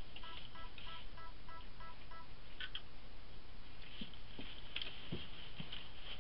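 A quick run of short electronic beeps, about three a second, like buttons being pressed on a small device's keypad, ending about two seconds in. Then a few light clicks and dull knocks as things are handled on the bench.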